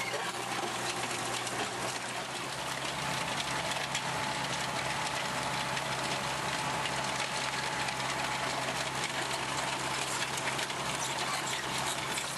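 Tractor-drawn Valentini FR implement working stony ground: a steady, dense mechanical noise over the low, even hum of the tractor engine running under load.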